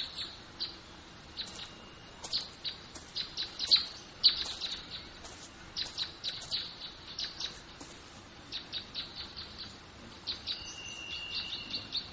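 Birds chirping: many short, quick high calls, with one held whistled note near the end.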